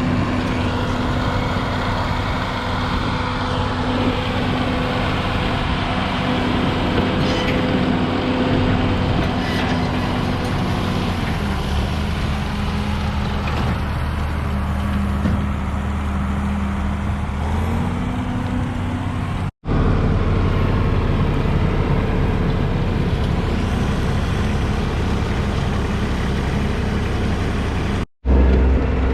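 Tractor engine running steadily while baling hay; its speed drops for several seconds about a third of the way in and then comes back up. The sound cuts out for an instant twice.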